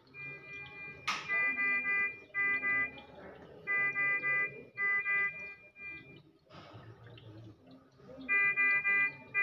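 Bedside patient monitor alarm beeping in trains of rapid, high-pitched pulses, each train under a second long and repeating with short gaps. A sharp click about a second in and a brief rustle past the middle.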